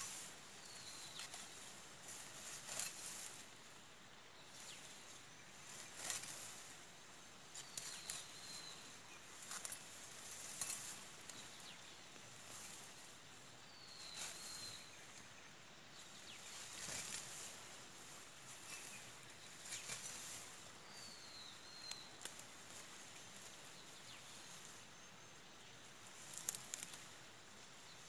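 Dry grass being cut and pulled by hand and gathered into a bundle: repeated rustling swishes every second or two. A bird gives a short call about every six seconds.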